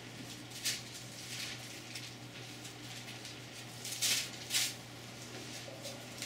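Bible pages being turned by hand: a few short papery rustles, the loudest two close together about four seconds in, over a steady low electrical hum.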